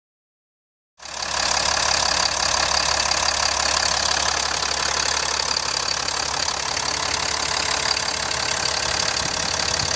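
2014 Ram 5500's 6.7-litre Cummins turbo-diesel engine idling steadily, heard close up with the hood open. It starts about a second in.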